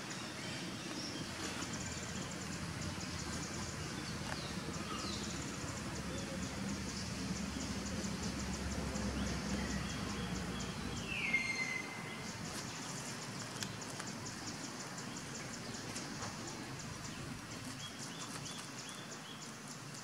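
Outdoor natural ambience: a steady high, rapidly pulsing insect trill, with a short falling call about eleven seconds in and a low rumble in the background.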